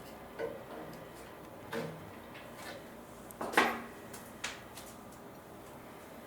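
A few separate light knocks and clunks of hardware being handled against a furniture panel while coat hooks are fitted. The loudest comes about three and a half seconds in.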